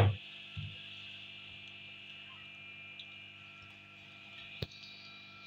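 Besan pakoras deep-frying in a karahi of hot oil: a steady sizzle over a low hum, with a knock right at the start and a sharp click about four and a half seconds in.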